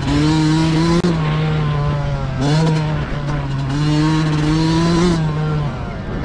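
Yamaha motocross bike engine accelerating hard, its pitch climbing twice with a dip in between, then backing off near the end.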